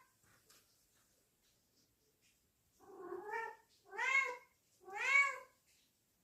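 Cat meowing three times, about a second apart, each meow a short call that rises and falls in pitch.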